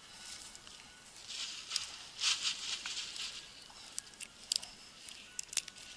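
Short bursts of rustling and a few sharp clicks from handling things by hand.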